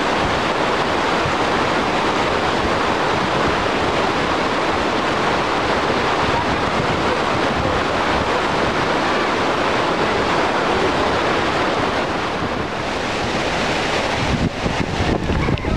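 Taughannock Falls in flash flood, its water falling and crashing into the plunge pool with a loud, steady rush. In the last second and a half, gusts of wind buffet the microphone with uneven low rumbles.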